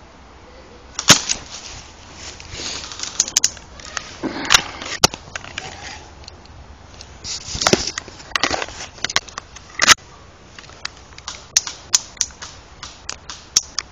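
Footsteps crunching and rustling through dry leaves and undergrowth on a woodland floor, broken by many sharp cracks, the loudest about a second in and again near ten seconds.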